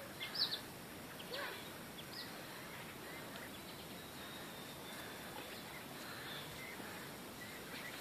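Birds chirping in a field: a few short high chirps in the first couple of seconds, then a faint drawn-out high call, over a steady faint outdoor hiss.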